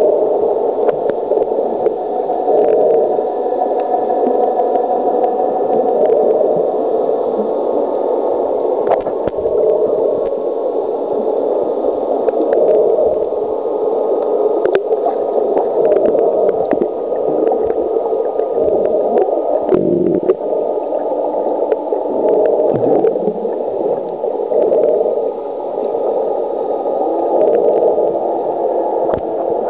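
Steady, muffled underwater rushing heard through a camera held below the surface, with scattered faint clicks and ticks.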